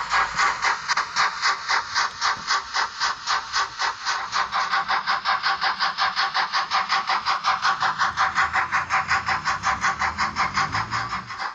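Märklin H0 BR 56.2-8 model steam locomotive running with its steam chuff sound, a steady rhythmic chuffing at about four chuffs a second. A low running rumble joins from about four seconds in and grows toward the end.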